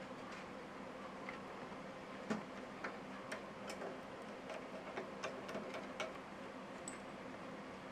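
Scattered light clicks and taps at an irregular pace over a faint steady hum.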